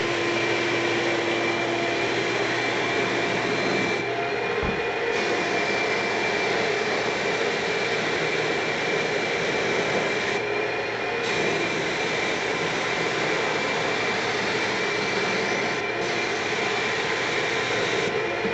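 Paint spray gun spraying shellac-base primer: a steady hiss of air and atomised primer over the constant whine of its air supply. The hiss drops out briefly a few times as the trigger is let off between passes, while the whine runs on.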